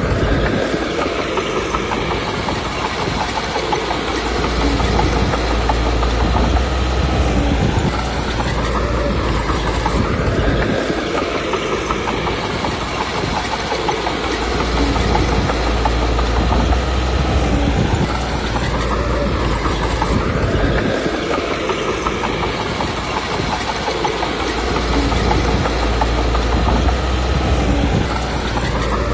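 Komatsu D21P crawler bulldozer's diesel engine working under load, its pitch and rumble rising and falling in a cycle every five or six seconds as it pushes and backs off.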